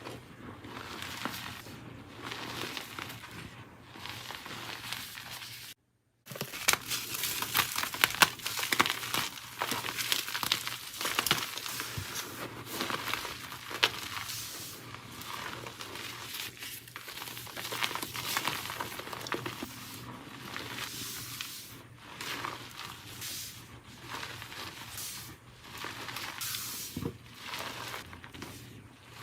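Blocks of dyed gym chalk being crushed and crumbled between the fingers: a dense, steady run of crisp crunches and crackles. A brief silence about six seconds in, after which the crunching is louder and crisper.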